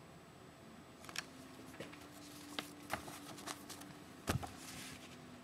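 Scattered light clicks, taps and rustles, with one louder knock about four seconds in, over a faint steady hum.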